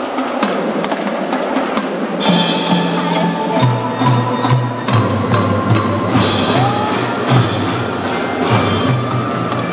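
Kindergarten drum band playing: marimbas and xylophones ring out a tune over drum strokes, with a low bass line coming in about two seconds in.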